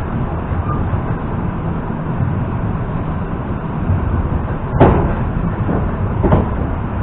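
EP2D electric train running at speed: steady low rumble of wheels and running gear, with two sharp knocks from the wheels on the track about five and six seconds in.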